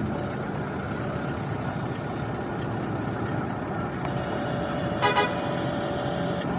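Steady running noise of radio-controlled model construction vehicles. About four seconds in, a truck horn starts and holds, with a short, louder toot about five seconds in.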